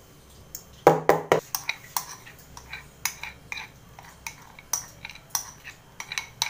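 A spoon clanking and tapping against a steel pan and a mixing bowl as cake batter is stirred and scraped out. A few loud clanks come about a second in, then sharp taps a few times a second.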